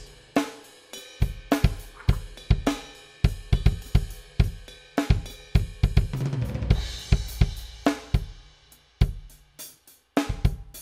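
Jamstix 3 virtual drummer playing a funk drum track on its Standard Funk kit: kick, snare, hi-hat and cymbals in a steady groove. The playing turns sparser, halftime, near the end as the song moves into its middle eight.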